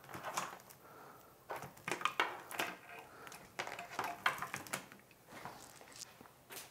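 Handling noise: rustling and irregular light clicks as bundled 3D-printer wires in plastic spiral cable wrap are moved and pulled across a wooden table.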